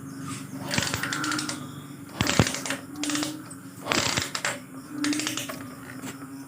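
Kick-starter strokes turning over a Honda TMX Alpha's single-cylinder engine for a spark check on a newly fitted stator. Each stroke is a quick cluster of clicks, four of them about every second and a half.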